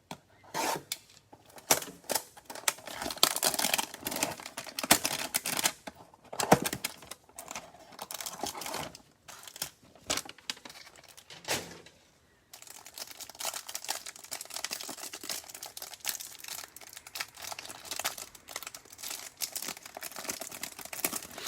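Trading-card pack wrappers crinkling and tearing as packs are opened and cards handled: irregular crackles and clicks with short pauses, then a steadier run of crinkling from about halfway through.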